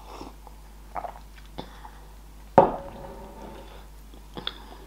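Someone drinking from a mug: a few soft sips and swallows, with one louder sharp sound about two and a half seconds in.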